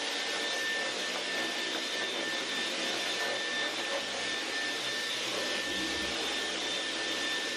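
Dyson cordless stick vacuum running steadily, a rushing noise with a thin, high, level whine over it.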